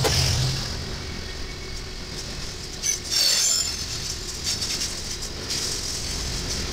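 Freight train cars rolling past, steel wheels clattering and rattling over the rails, with a brief high screech about three seconds in.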